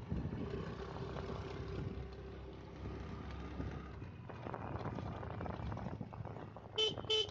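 Motorcycle engine running on the move, with two short horn beeps near the end.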